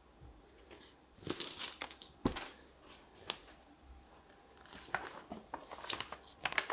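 Board game parts being handled on a table: a plastic sheet and paper rustling and crinkling, with irregular sharp clicks and taps of small plastic pieces, the sharpest a little over two seconds in.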